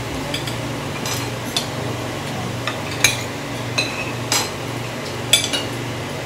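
Forks and chopsticks clinking against plates and a grill pan during a meal, with scattered sharp clinks about once a second over a steady low hum.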